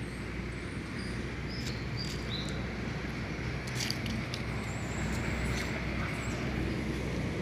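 Steady low outdoor rumble, with a few brief high chirps or squeaks between one and two and a half seconds in and a cluster of sharp clicks about four seconds in.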